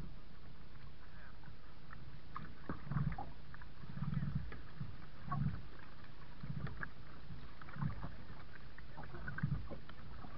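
Kayak paddle strokes in the water: a soft dip and swish about every second and a quarter, beginning about three seconds in, with small drips and splashes between them over a steady low background rush.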